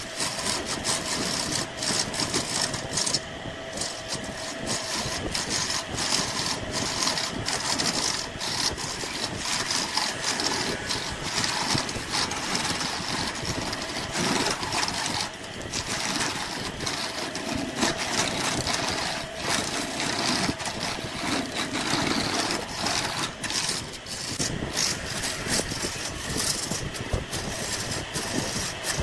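Woodturning lathe running while a turning tool cuts the spinning wood: a steady scraping, shaving noise with many small irregular clicks over a faint motor hum.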